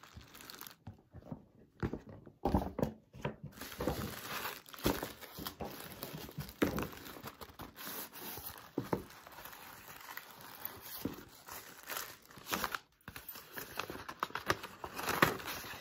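Tissue paper rustling and crinkling as a box wrapped in it is handled and unwrapped, irregular and stop-start, with a few sharper crackles.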